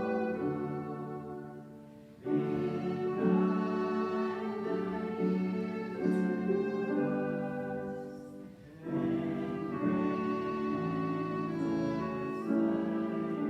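Slow instrumental music of long held notes in phrases. It fades briefly about two seconds in and again near nine seconds before each new phrase begins.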